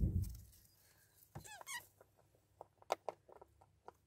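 Soft low thump at the start and a brief squeak about a second and a half in. Then a pet rabbit crunches chopped fresh vegetables, giving quick, crisp chewing clicks several times a second.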